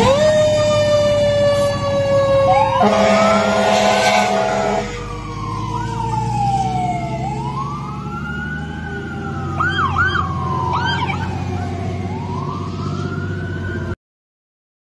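Fire engine sirens: a long, slowly falling siren tone at the start, a blast of the truck's air horn about three to five seconds in, then a siren wailing slowly up and down with a few quick chirps around ten seconds. The sound cuts off suddenly about a second before the end.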